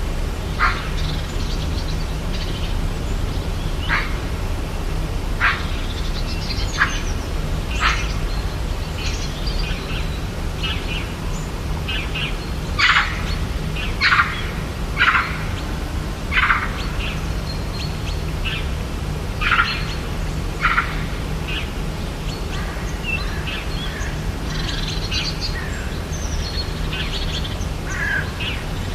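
Forest birds calling: short calls every second or two, with a louder run of calls near the middle, over a steady low rumble.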